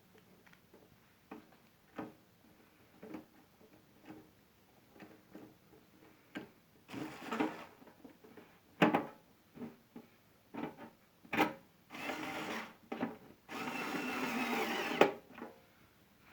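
Cordless electric screwdriver running in short bursts, with one longer run of about a second and a half near the end, as screws are driven back into a sandwich toaster's casing. Between the runs come sharp clicks and knocks of the parts being handled.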